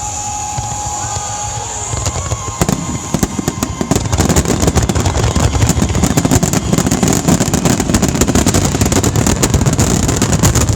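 Fireworks finale: a thin whistle and a steady rumble, then from about two and a half seconds in a dense, rapid barrage of bursts and crackles that keeps going.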